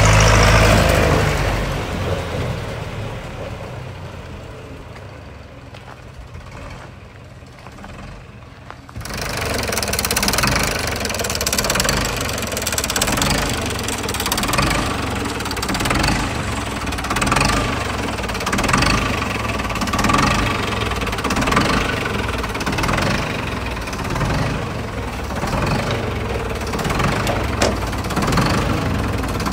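Nuffield tractor's diesel engine running. It fades away over the first several seconds, then comes back suddenly louder about nine seconds in and keeps running with a regular rise and fall in loudness.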